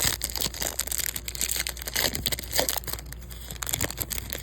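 Foil trading-card pack wrapper crinkling and crackling as it is torn open and handled, an irregular run of crackles.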